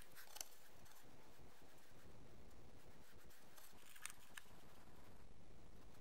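Faint handling noise from hands working small wires and components on a wooden tabletop: a few light clicks and rustles, about half a second in and again around four seconds in, over a low steady background rumble.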